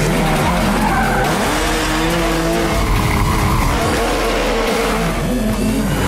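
Engines revving hard, their pitch climbing and dropping repeatedly, with tyres skidding on the pavement.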